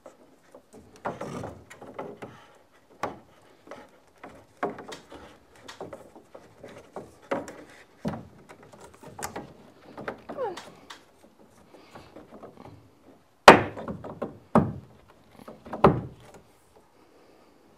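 Plastic PEX water line being pulled through holes in wooden ceiling joists: scattered knocks and scrapes of pipe against wood, with a short falling squeak about ten seconds in and three louder knocks near the end.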